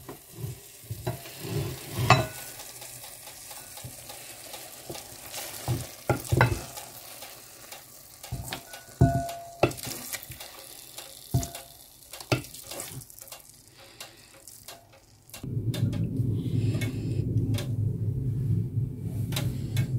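Wooden spatula scraping and knocking against a dark metal pan as thick cooked spinach and chana dal is served out into a serving bowl, in scattered short scrapes and taps. About fifteen seconds in, a steady low hum takes over.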